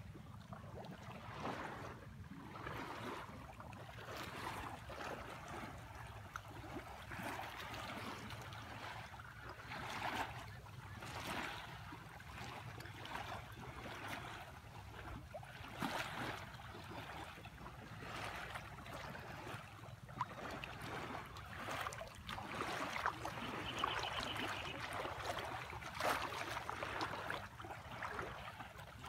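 Water splashing and rushing along the hull of a moving boat, swelling and easing every second or two, over a steady low rumble.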